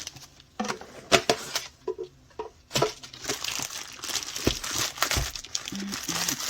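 Packaging of a diamond painting kit being handled and opened by hand: crinkling and crackling with some tearing. Scattered sharp crackles come first, with a brief lull, then denser continuous crinkling from about halfway through.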